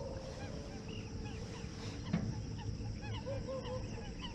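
A flock of water birds calling: many short, overlapping calls, one after another, with no single call standing out.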